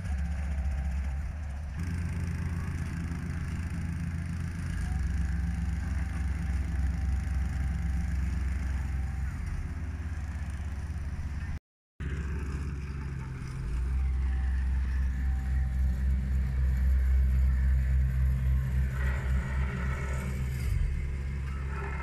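A small Hamm HD 8 tandem asphalt roller and a vibratory plate compactor running: a steady low engine drone with a fast pulsing vibration. The sound drops out for an instant just before halfway, then grows louder and more strongly pulsed.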